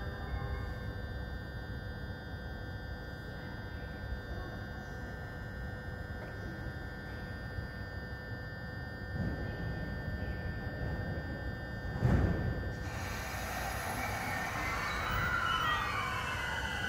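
Electric commuter train at a station platform: a steady low rumble with an electrical hum, a low thump about twelve seconds in, then a hiss and whining tones that glide up and down near the end.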